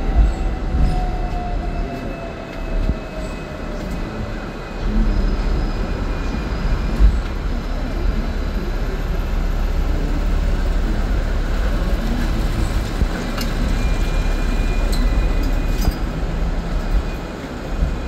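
Hong Kong double-decker tram running along street tracks, heard from on board: a steady low rumble of wheels on rail, with a faint whine that falls in pitch over the first few seconds and a few faint clicks in the second half.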